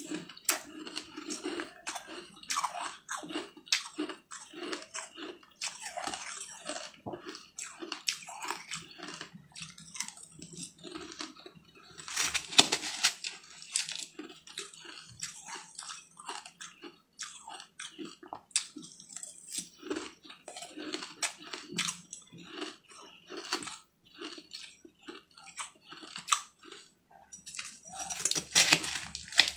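Close-up chewing and crunching of mouthfuls of a granular green food, with a metal spoon scooping in a steel bowl; the loudest scooping comes about twelve seconds in and again near the end.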